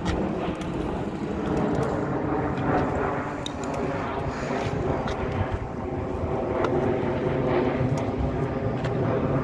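Small dirt-bike engine, a steady drone with no clear change in pitch.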